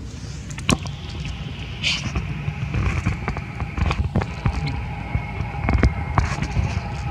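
A long-tailed macaque biting and chewing a green mango: scattered sharp clicks and crunches over a constant low rumble, with a steady high buzz from about two seconds in.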